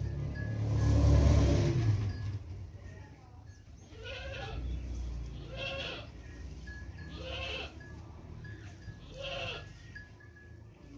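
A loud low rumble about a second in, then an animal calling four times, about a second and a half apart, each call short and rising then falling in pitch.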